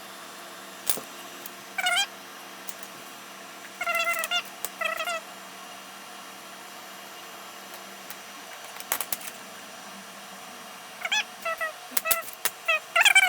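Domestic cat meowing: a series of short meows, a few near the start, then a quiet stretch, then a quicker run of them near the end. A few sharp clicks fall in between.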